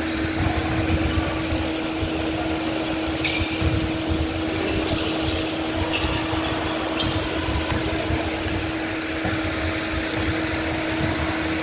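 Indoor basketball court ambience: a steady mechanical hum with one constant tone under a low rumble, and sneakers squeaking sharply on the hardwood floor a few times, about three, six and seven seconds in.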